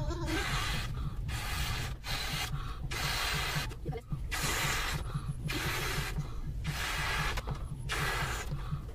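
Latex balloon being blown up by mouth: a series of hissy breaths pushed into the balloon, each lasting up to a second or so, with short gaps between them for drawing breath.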